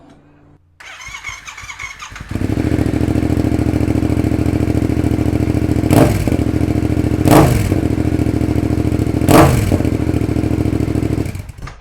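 Yamaha MT-07's parallel-twin engine, breathing through a Musarri aftermarket exhaust with its supplied baffle fitted, cold-started. The starter cranks for about a second and a half before the engine catches and idles. The throttle is then blipped three times, in short revs.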